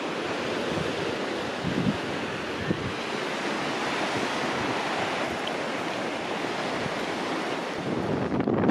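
Surf washing onto a rocky shingle beach, a steady hiss of breaking waves mixed with wind. Wind buffets the microphone more strongly near the end.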